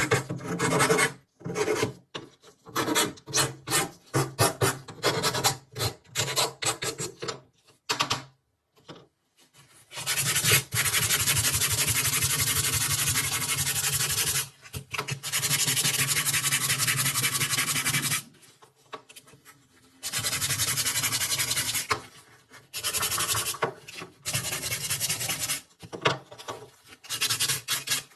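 Abrasive rubbing and rasping on rifle parts. It begins as a run of short, quick back-and-forth strokes, then turns into several long stretches of continuous rasping, each a few seconds long, with brief pauses between them.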